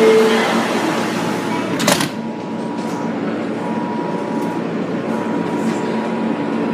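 R160 subway car's door chime ending on its lower note, then the doors thump shut about two seconds in, cutting off the platform noise. The train then starts to pull out, with a steady electric motor hum under the running noise.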